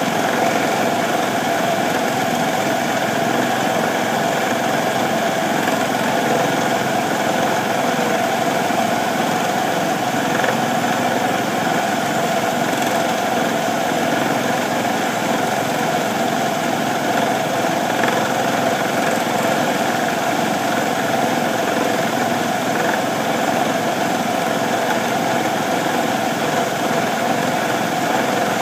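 Small benchtop metal lathe running steadily at a raised speed as it turns a pipe maker's spoon bit. Its motor and gear drive give a constant whine of several held tones.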